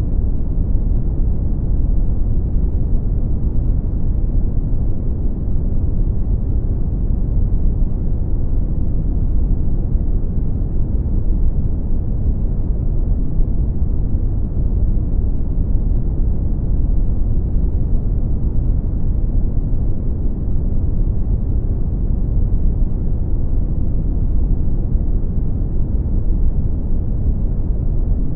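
Brown noise: a steady, deep rumbling hiss with most of its energy in the low end, unchanging throughout.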